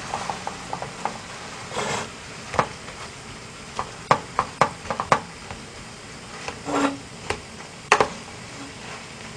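Chopsticks stirring and mashing rice into sizzling webfoot octopus and pork belly bulgogi in a yellow aluminum pot. The utensils click and scrape against the pot again and again over a steady sizzle.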